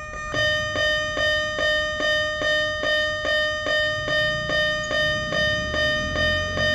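Japanese railway crossing alarm ringing its steady "kan-kan" strikes, about two and a half a second, each strike ringing briefly over a held tone. The strikes grow louder just after the start.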